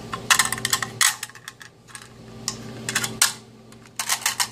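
Quick metallic clicks and rattles from a USGI aluminium AR-15 magazine being assembled by hand, as the follower and spring are fitted into the body, coming in several short clusters.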